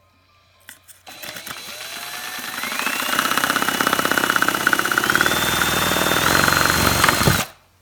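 Electric drill spinning up and driving a LEGO chainsaw's crankshaft, the plastic mechanism clattering rapidly. The motor whine rises in pitch in steps, then cuts off suddenly after about six seconds.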